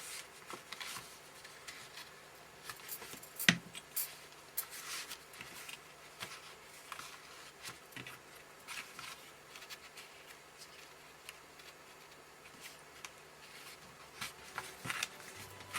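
Light handling noises of card and paper pieces: scattered soft taps and rustles, with one sharper click about three and a half seconds in, over a faint steady hum.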